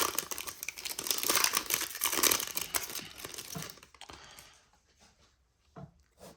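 Foil wrapper of a baseball card pack being torn open and crinkled for about the first four seconds, then a few faint taps as the cards are handled.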